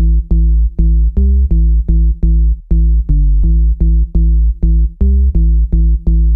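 Electronic intro music: a steady synth-and-drum-machine beat, about two to three pulsing hits a second, with a short break a little before halfway.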